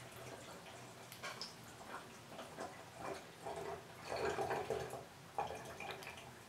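Kitchen mixer tap dripping faintly into a stainless steel sink, heard as irregular soft ticks. A brief, louder muffled sound comes about four seconds in.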